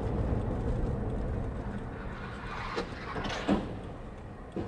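Engine and road noise inside a moving car, heard through a dashcam, with a few short knocks about three seconds in.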